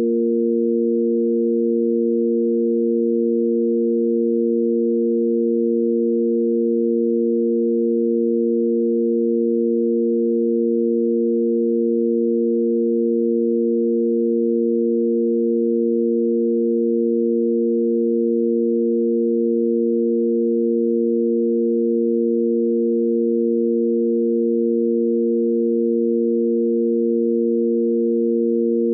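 Sine-wave tanpura drone in A#: three pure sine tones, the root, fifth and octave, held steady together without change.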